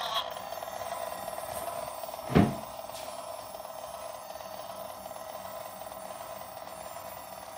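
Boxer toy robot driving along a drawn line in go-kart mode, giving off a steady buzzing, fast-trilling electronic tone. A short, loud knock with a falling low tail comes about two and a half seconds in.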